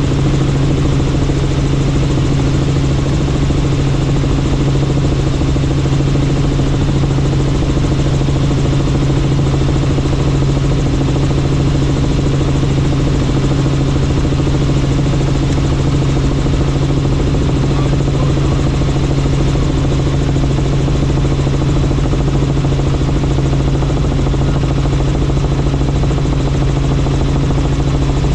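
Helicopter in flight, heard from the cabin: a steady engine and rotor drone with a constant low hum that does not change.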